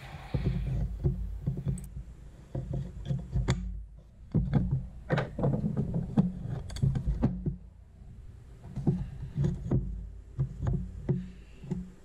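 Irregular clicks, taps and knocks of metal shifter parts being handled and set against a wooden workbench while a Bimmerworld tunnel-mount shifter is adjusted, over a steady low hum.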